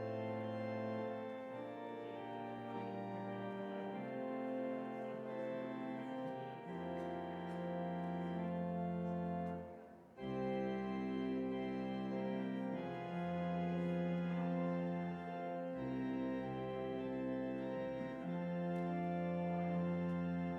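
Organ playing slow, sustained chords over a bass line that moves every second or two; the music breaks off briefly about halfway through, then resumes.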